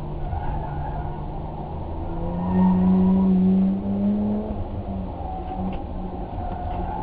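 A vehicle engine running steadily, revving up about two seconds in for roughly two seconds and then dropping back.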